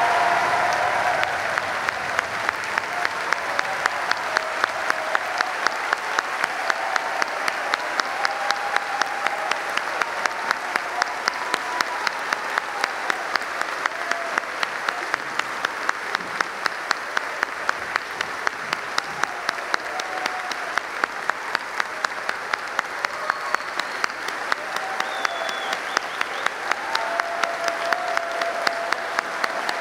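A large audience giving a sustained standing ovation: dense applause, with a steady run of sharp claps at about three a second standing out above the rest.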